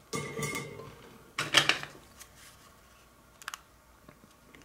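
Handling noise as a circuit board and small tools are moved on a work surface: a scraping rattle in the first second, a louder clatter about a second and a half in, then a couple of light clicks.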